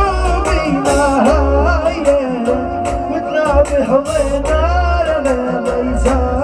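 A man singing a Bedouin hejini song, his voice bending and ornamenting the melody over an electronic accompaniment with a pulsing bass and a steady beat.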